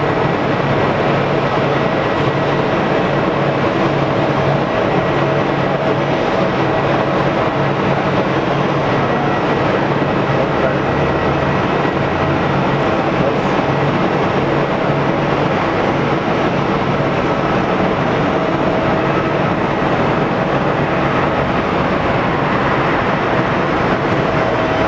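Steady jet aircraft noise: an even, unchanging rumble with a faint steady whine under it.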